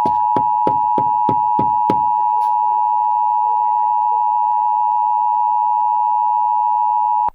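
Emergency Alert System attention signal: a loud, steady two-tone sine sound (853 and 960 Hz together) that cuts off abruptly near the end. Over its first two seconds comes a quick run of about seven knocks, roughly three a second.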